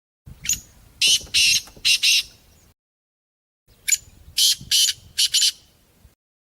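Partridge (teetar) calling in two phrases. Each phrase is a short thin note followed by three loud, harsh, high-pitched notes.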